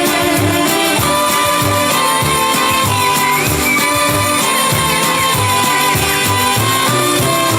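Loud music with a steady beat, held melody notes and a bass line.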